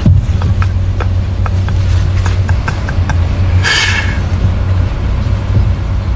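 Heavy vehicle engine rumbling steadily, with a series of sharp knocks in the first half and a brief hiss a little past halfway.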